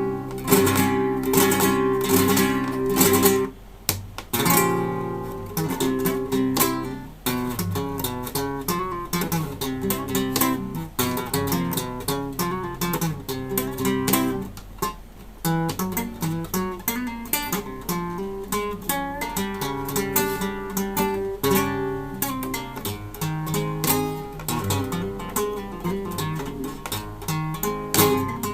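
Acoustic guitar playing a piece, plucked single notes and chords, with a brief break about four seconds in.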